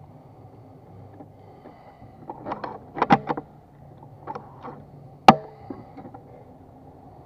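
Regulated PCP air rifle fired once about five seconds in: a single sharp crack that dies away quickly. A little earlier comes a short run of clicks and knocks.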